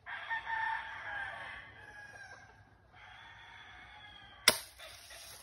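A rooster crows for about three seconds. About four and a half seconds in comes a single sharp crack from a BB gun shot.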